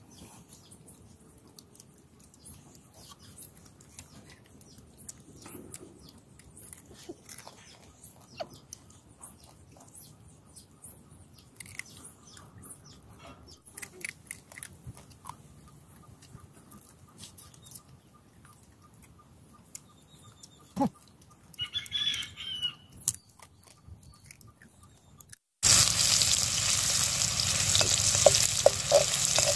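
Faint scattered clicks and a few bird chirps; then, about four seconds before the end, loud sizzling starts suddenly as sliced onions fry in hot oil in a wok and are stirred with a slotted spoon.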